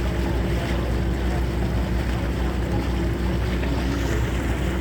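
Running ferry: water rushing steadily along the hull, over the low, even hum of its engine.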